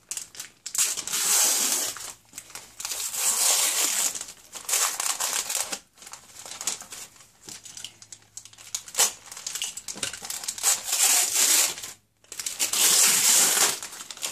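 Brown kraft paper wrapping being ripped and crumpled by hand off a package, in repeated bouts of a second or two with short pauses between.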